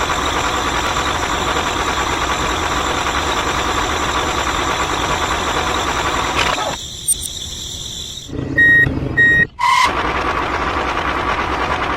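A small motor running steadily with a whine, its sound dropping away briefly partway through. Two short, high beeps like a reversing alarm come a little before ten seconds in, then the motor hum carries on.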